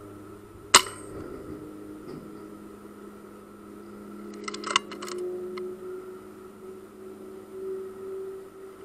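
A single sharp shot from an FX Wildcat Mk III Compact .177 PCP air rifle about a second in. A few seconds later comes a quick cluster of metallic clicks, typical of the sidelever being worked to chamber the next pellet. A faint steady high whine runs underneath.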